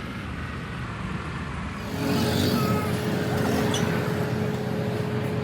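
Truck engine running, growing louder about two seconds in, with a steady whine over it from then on.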